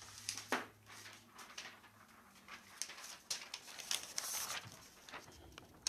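Off-camera handling of a sheet of paper: rustling and sliding, with scattered light clicks and taps. The rustle is loudest about four seconds in.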